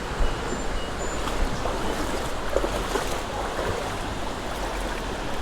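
Steady rushing of water around a kayak and its cart standing in shallow water, with a couple of faint, brief high chirps about half a second and a second in.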